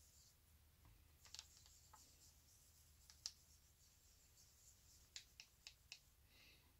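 Near silence, with a few faint clicks as stencil film is scrubbed by hand in a plastic tub of developer: single ticks about a second in and near the middle, then a quick run of about four near the end.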